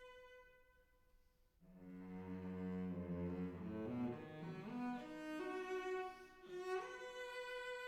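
Background music of bowed strings: a held high note fades away, then a low line enters and climbs step by step through several notes to another held high note.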